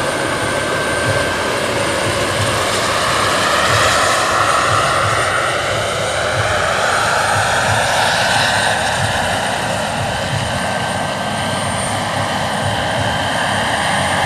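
Turbine-powered Mil Mi-24 scale model helicopter flying low passes, its turbine whining over the steady beat of its main rotor. The whine's pitch glides up through the middle and then falls away as the model passes.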